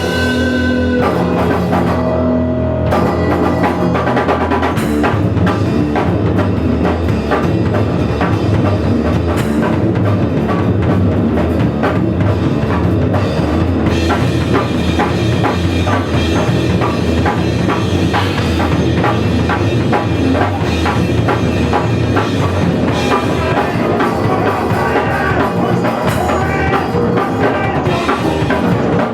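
Fast-paced rock music from a drums-and-bass duo: a busy drum kit with bass drum and snare driving frenetic rhythms under a bass guitar. The first couple of seconds are held notes before the drumming takes over.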